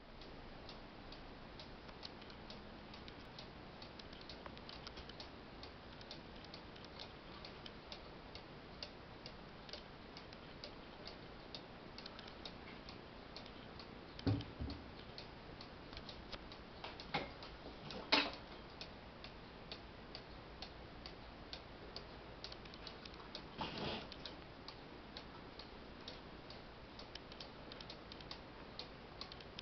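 Carved wooden cuckoo clock ticking steadily, an even run of light clicks. A few louder knocks and clicks break in around the middle.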